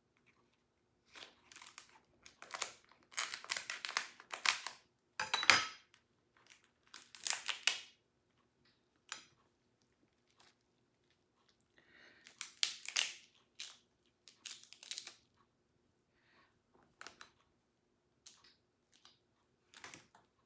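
Kitchen scissors snipping through a cooked lobster tail's shell, and the shell being cracked and pulled apart by hand. It comes as irregular crunching, crackling bursts, densest in the first half and sparser toward the end.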